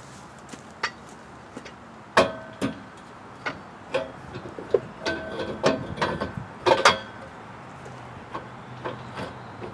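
Metal clanking: a string of sharp knocks of steel on steel, several ringing briefly, bunched from about two to seven seconds in, with a few lighter taps near the end.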